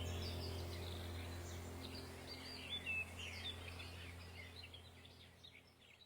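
Small songbirds chirping and twittering in quick, high notes over a low steady hum. Both fade out gradually and are gone about a second before the end.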